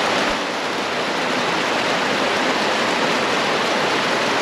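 Waterfall's water rushing steadily, a loud even hiss.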